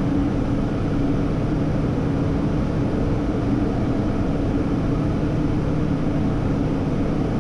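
Steady in-flight cockpit noise of a Hawker 800XP business jet on approach: an even rush of air with a low steady hum underneath.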